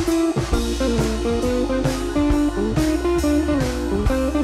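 Background music: a blues-style guitar track with a steady beat.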